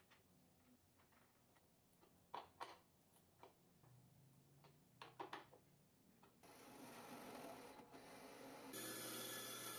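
A few light knocks and taps in a workshop, then a steady machine whirr starts about six seconds in and gets louder near the end.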